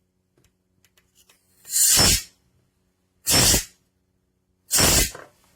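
Company of Animals Pet Corrector compressed-gas spray, pressed three times, giving three short hisses about a second and a half apart. It is the hiss used to interrupt a dog's unwanted behaviour.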